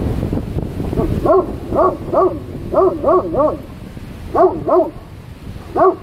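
An animal barking: about ten short, pitched barks, each rising then falling, in quick runs of two or three, over a low rumble of wind on the microphone.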